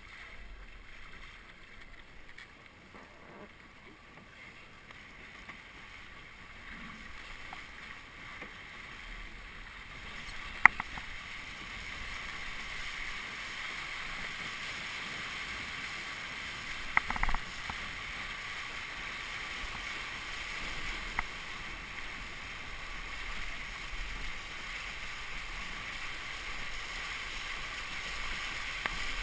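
Water rushing and splashing past a small sailboat's hull under way, with wind. It grows louder about ten seconds in and then holds steady, with a few sharp clicks or knocks along the way.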